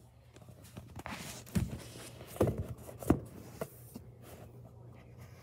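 A handful of soft thumps and rustles, about five of them in the first few seconds, over a steady low hum.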